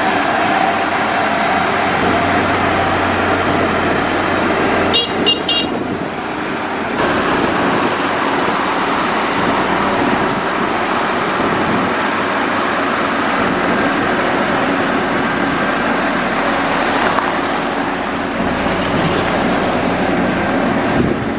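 Motor grader's diesel engine running steadily under load as it grades gravel. About five seconds in come a few short, high beeps.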